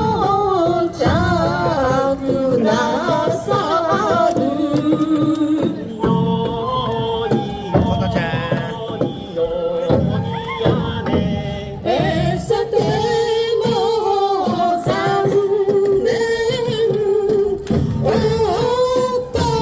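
A song with singing voices over accompaniment.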